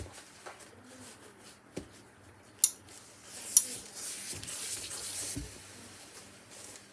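Hose-fed industrial steam iron pressing a seam: two sharp clicks, then a hiss of steam lasting about two seconds, with soft thumps of the iron and fabric being handled.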